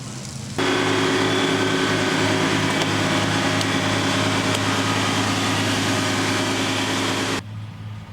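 A steady mechanical hum or whine from a running motor, with several fixed tones, starting abruptly about half a second in and cutting off suddenly near the end.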